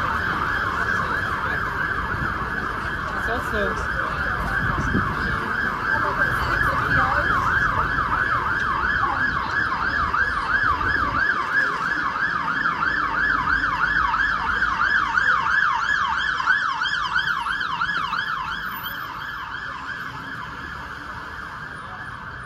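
Emergency vehicle siren on a fast yelp, its tone sweeping up and down several times a second, fading away near the end over the rumble of street traffic.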